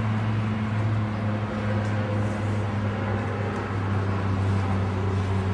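Steady low mechanical hum, with a constant deep tone and a fainter one above it, over a wash of city traffic noise.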